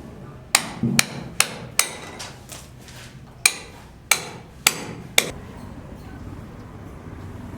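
Hammer blows at a building site: about eight sharp strikes in two runs of four, the first run a little quicker than the second.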